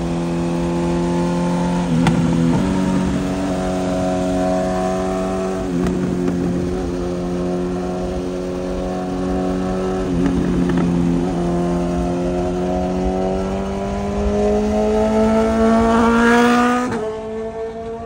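BMW S1000RR inline-four sportbike engine running through a full aftermarket exhaust at a steady highway cruise. The note breaks briefly a few times, then the revs climb steadily for several seconds under acceleration before dropping sharply near the end.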